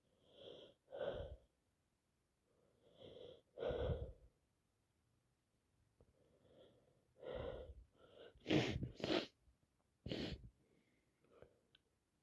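A woman with a heavy head cold sneezing repeatedly, each sneeze preceded by a breathy build-up intake. Two sneezes come a few seconds apart, then a quick run of three near the end.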